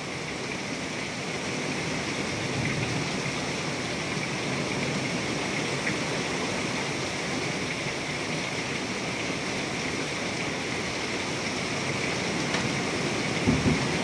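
Heavy thunderstorm rain pouring down steadily, driven by strong wind gusts, with a brief low thump near the end.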